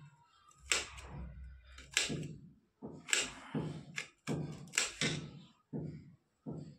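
Kitchen knife chopping ginger on a steel plate: about a dozen uneven knocks of the blade striking through onto the metal.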